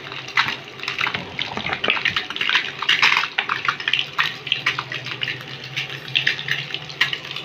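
Hot oil sizzling and crackling around whole peeled boiled eggs frying in a small pan, a dense, irregular spatter with a steady low hum underneath.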